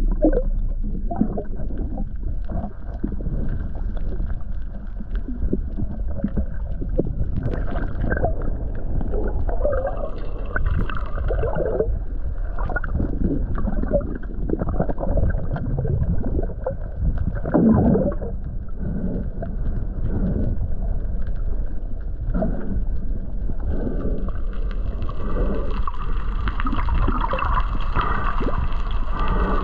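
Sea waves surging and washing in among shoreline rocks, swelling and falling irregularly over a steady low rumble.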